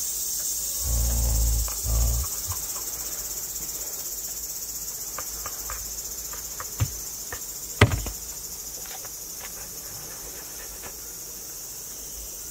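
A Siberian husky chewing and licking at a toothbrush: muffled low bumps in the first couple of seconds, then scattered small clicks of teeth on the brush, the sharpest about eight seconds in, over a steady high-pitched hiss.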